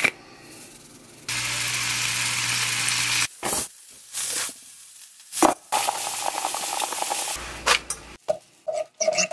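Food-preparation sounds cut together: a steady hiss lasting about two seconds, then several short knocks and a stretch of quick clattering and scraping, with a run of rapid clicks near the end.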